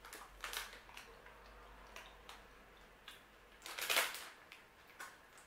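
Quiet mouth sounds of chewing small cookies and cream candy bites, with a few soft clicks early on. About four seconds in, a clear plastic snack bag crinkles as fingers reach into it, the loudest sound.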